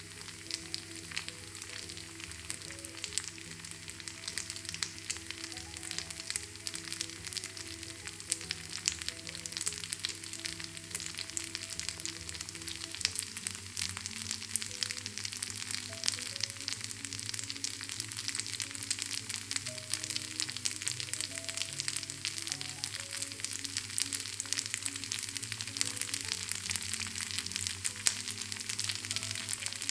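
Rice batter sizzling and crackling as it cooks in a clay pan, with many fine pops as bubbles open holes across its surface; the crackling grows denser in the second half. Soft background music with held notes plays underneath.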